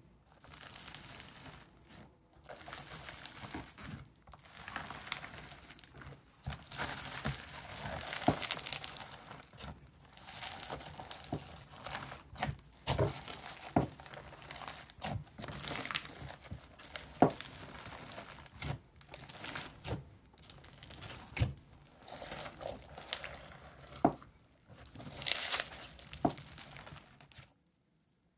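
Hands squeezing and pressing foam-bead slime (floam), the beads crackling and crunching in repeated presses, with sharp little pops from the slime.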